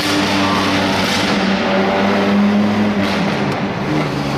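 A 1955 Mercedes-Benz Ponton 220a's straight-six engine running at steady cruise, with road noise, heard from inside the cabin. The engine note drops lower about three seconds in.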